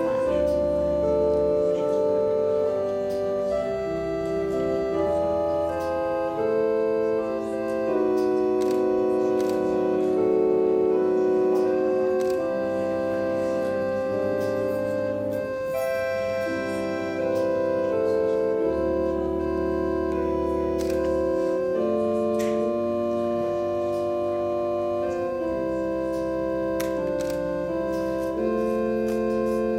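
Organ playing slow, held chords that change every second or two, with low bass notes sustained beneath them.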